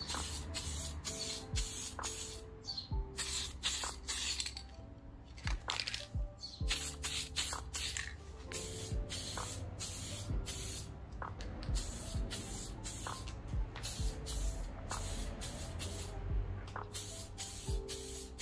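Aerosol spray-paint can hissing in repeated short bursts as paint is sprayed onto a bicycle frame, with lo-fi background music underneath.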